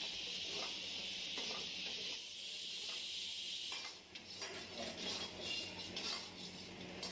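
Chopped vegetables and dried red chillies sizzling in hot oil in a steel wok, a steady hiss. About four seconds in the hiss drops away and a metal ladle scrapes and taps against the wok.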